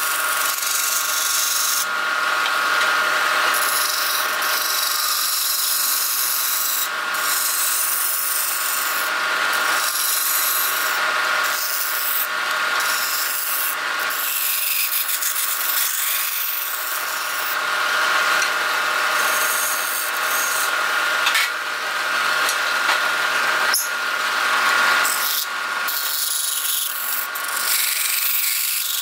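Sandpaper held against a wooden vase spinning on a wood lathe: a steady rubbing hiss over the even whine of the running lathe.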